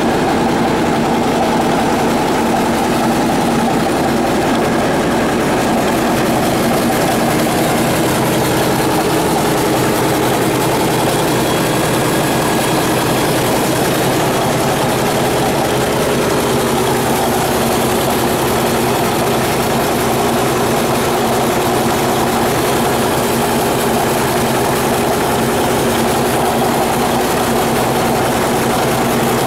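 1977 Caterpillar D8K crawler dozer's turbocharged six-cylinder diesel engine running steadily, with an even, unchanging engine note.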